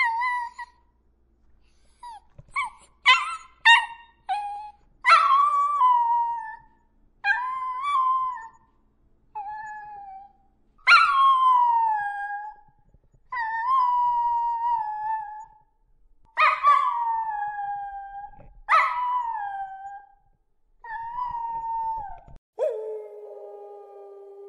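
Dogs howling: a string of drawn-out howls, each starting high and sliding down in pitch, with a few short yips about three seconds in. Near the end a lower howl begins and slides slowly down.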